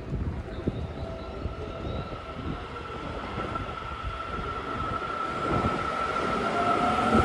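Seibu 30000 series electric train pulling away from the platform, its traction motors giving a steady high electric whine that grows louder as it gathers speed, with further tones rising in pitch near the end.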